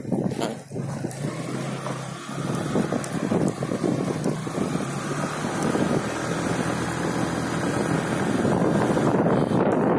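Motorcycle running while riding along a road, engine and road noise mixed with wind on the microphone; it gets a little louder over the last few seconds.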